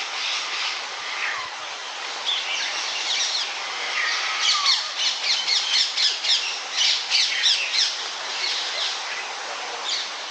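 A noisy chorus of birds chirping and squawking, with a run of loud, quickly repeated calls in the middle.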